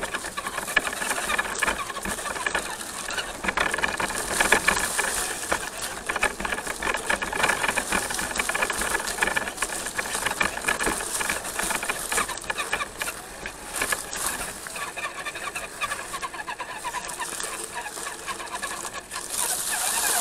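Redcat Gen7 RC crawler's electric motor and drivetrain whining, the pitch rising and falling with the throttle, over a dense run of clicks and knocks as it crawls over the rocky trail.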